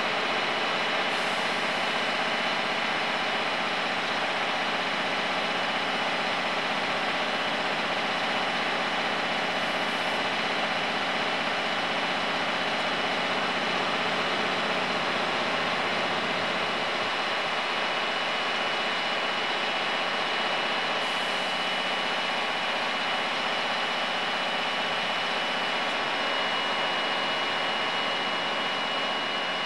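Scania 8x8 truck's diesel engine idling steadily, with a thin, steady high whistle over it.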